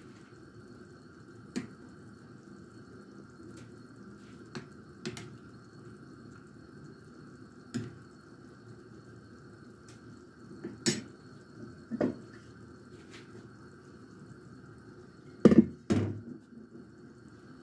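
Metal spoon clinking and scraping against the rim of an enamel stockpot, with liquid dripping, while foam is skimmed off simmering meat broth. Single sharp clicks come every few seconds, and two louder knocks near the end, over a steady low background noise.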